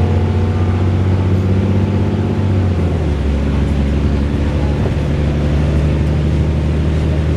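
VDL DB300 double-decker bus's diesel engine running, with a steady low note that drops in pitch about three seconds in.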